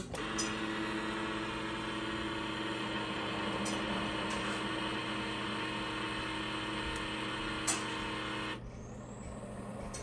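Keurig K-Compact single-serve coffee maker humming steadily as a brew cycle starts, with a few faint clicks. The hum stops about a second and a half before the end, leaving a soft hiss just before the coffee starts to pour.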